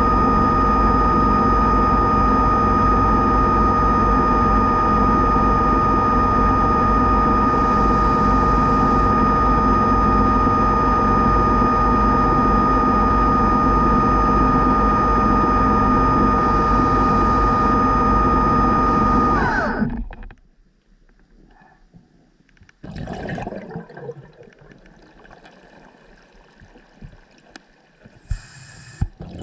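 Underwater scooter (diver propulsion vehicle) motor running steadily with a whine. About two-thirds of the way in it winds down briefly and stops. After that it is much quieter, with short hisses of diver's exhaust bubbles.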